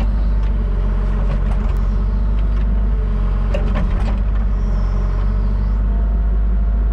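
Caterpillar 304 mini excavator's diesel engine running steadily, heard from inside the cab, while the hydraulics lower the stick. A few light clicks and knocks come through about a second and a half in and again near the middle.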